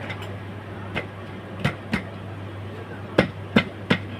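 A series of six sharp knocks, irregularly spaced, the last three the loudest, over a steady low hum.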